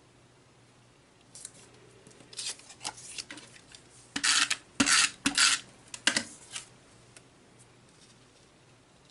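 Paper being handled on a craft table: a run of short rasping and rustling strokes, loudest as a few sharp swishes around the middle.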